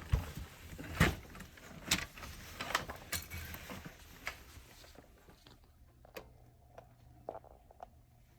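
Scattered plastic clicks and knocks as a Dyson vacuum's cleaner head and wand are handled and fitted together, the loudest in the first few seconds and fainter ones after; the motor is not running.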